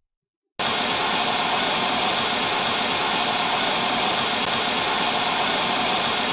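Loud, steady hiss of static-like white noise that starts abruptly about half a second in and holds level.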